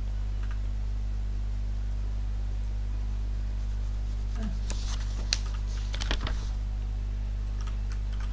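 Steady low electrical hum in the recording, with a few light clicks and scratchy taps clustered about five to six seconds in.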